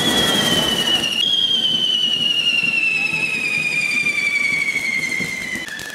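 Spark-spraying fireworks held up on poles: a loud rushing hiss under a long, high whistle that slides slowly down in pitch, with one sudden step up about a second in.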